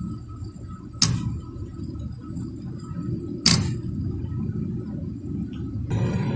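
Packaged HVAC unit running with a steady low rumble, broken by two sharp clicks about a second and three and a half seconds in. Near the end the running noise gets louder and fuller.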